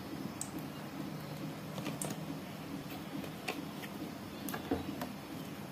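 Cooking oil heating in a pan, giving scattered small crackles and ticks over a steady low hum.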